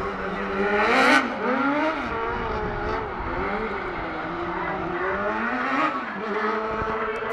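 Rally car engine revving hard, its pitch rising and falling again and again as the car slides on tarmac, with tyre noise; loudest about a second in.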